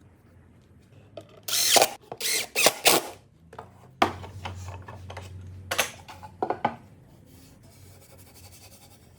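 Woodworking shop sounds: four quick rasping strokes on wood, then a knock about four seconds in followed by a short low motor hum, then a few light clicks and scrapes.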